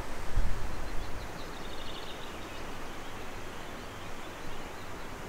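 Outdoor ambience: wind rumbling on the microphone in the first second, then a steady hiss, with a bird's short trill about two seconds in.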